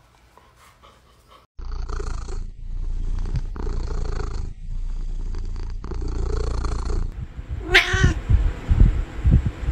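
Cat purring loudly while being scratched on both cheeks, a contented purr in five stretches of about a second each, breath by breath. Near the end a short sharp cry is followed by a few soft thumps.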